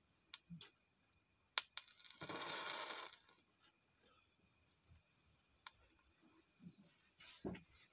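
Crickets chirping in a steady, high, pulsing trill. Over it come a few sharp clicks, a rushing hiss lasting about a second a couple of seconds in, and a dull knock near the end.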